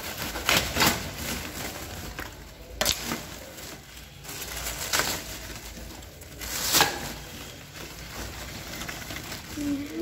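Woven plastic sack of coal being untied and opened by hand: rustling and crinkling of the stiff sack fibres, with several sharp crackles and the lumps of coal shifting inside.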